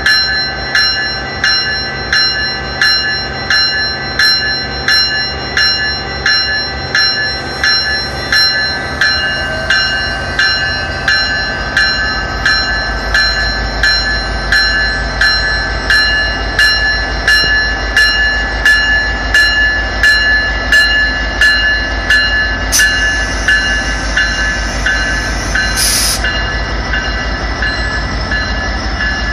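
Level-crossing warning bell ringing steadily, about three strokes every two seconds, while a GO Transit commuter train rumbles through the crossing, growing louder from about ten seconds in. No horn is sounded, because of the horn ban at the crossing. A short high-pitched squeal comes near the end.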